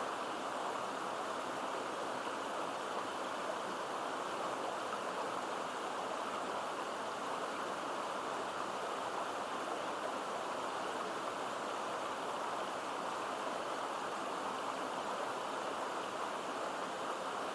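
Running water of a stream and small waterfall, a steady even rush with no breaks or changes.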